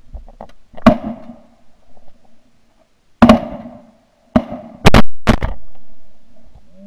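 A volley of about five shotgun shots at ducks overhead. One shot comes about a second in, another a couple of seconds later, then three in quick succession, each with a short echo.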